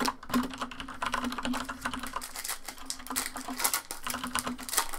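Trading-card pack wrapper being torn open and peeled back by hand: a dense run of crisp crackles and crinkles.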